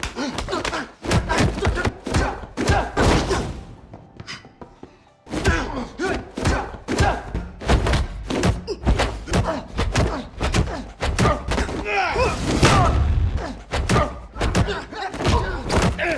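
Martial arts film fight-scene soundtrack: rapid strikes and heavy thuds landing over a music score, with a short lull about four seconds in.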